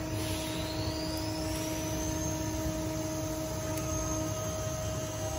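Automatic bottle screen printing machine running: a steady electrical hum with a high whine that rises over the first two seconds or so and then holds steady.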